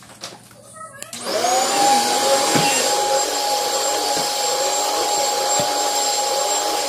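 Commercial backpack vacuum cleaner switched on about a second in: its motor spins up with a quickly rising whine, then runs at a steady, loud whine with airflow hiss.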